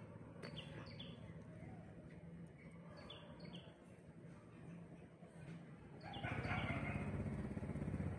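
Small birds giving short high chirps that fall in pitch, mostly in pairs, several times over a quiet background. About six seconds in, a louder steady rumble with hiss comes in.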